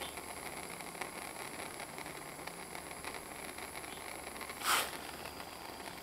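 Propane hand torch burning with a steady, faint hiss. A short, louder burst of hiss comes near the end.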